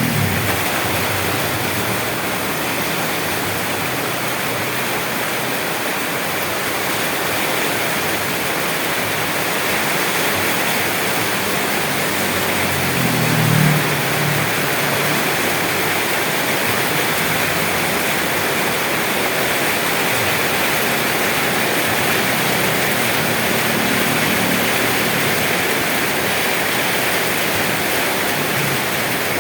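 Steady rain, an even hiss of falling water. A low rumble swells briefly about halfway through.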